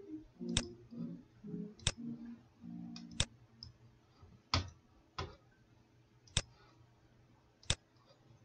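Computer mouse clicking: about seven sharp, separate clicks spaced a second or so apart, with faint low tones under the first few.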